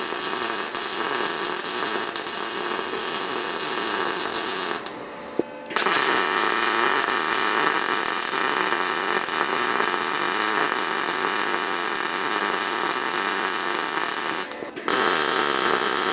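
Electric welding arc crackling and hissing steadily as a weld is laid on the steel base, cutting out abruptly twice, about five seconds in for around a second and briefly near the end, as the bead is stopped and restarted.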